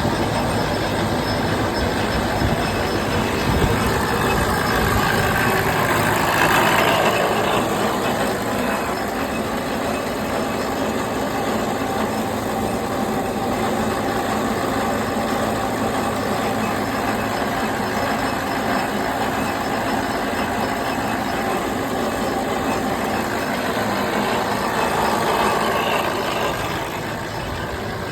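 Steady running noise of a motor vehicle, swelling louder about six seconds in and again near the end.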